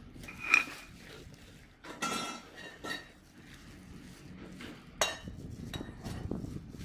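Steel trampoline frame tubes knocking and clinking together, with a sharp ringing clink about half a second in, and crinkly plastic wrap rustling as it is pulled and torn off the tubes.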